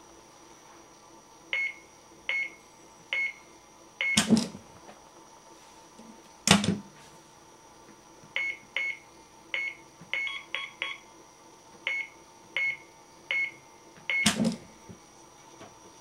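Short, identical electronic beeps from an appliance's keypad as its top buttons are pressed, about fifteen in two runs, broken by three loud clunks.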